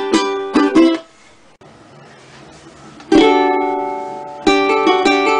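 Ukulele playing: a run of quick strums stops about a second in, and after a pause of about two seconds a single chord is struck and left to ring and fade before the strumming starts again near the end.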